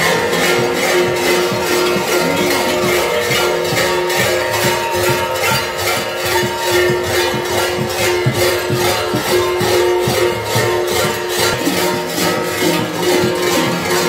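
Many large metal kuker bells (hlopki), worn in clusters on kukeri dancers' belts, clanging together in a continuous, rapid jangle, with steady ringing tones held under the clatter.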